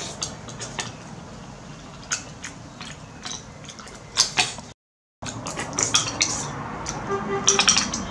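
Metal spoon clinking and scraping against a ceramic bowl as melon pieces are scooped out, a scatter of light, irregular clicks. The sound cuts out completely for about half a second a little past the middle.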